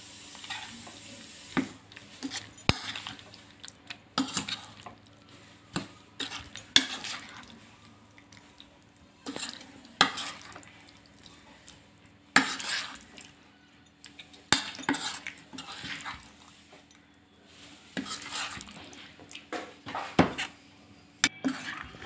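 Steel spoon stirring raw prawns in a thick spice-and-curd marinade in a bowl: irregular scrapes and clinks of the spoon against the bowl, several a second, with short pauses.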